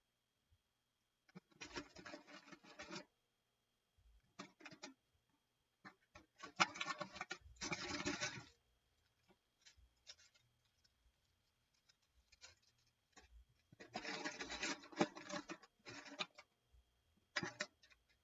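Scraping and rubbing in several bursts of one to two seconds, with quiet gaps between them, from hand work on a phone with a shattered screen.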